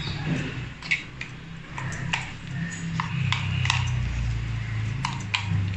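A spatula scraping thick ground chutney out of a stainless steel mixer-grinder jar, with scattered light clinks and taps against the metal, over a low hum.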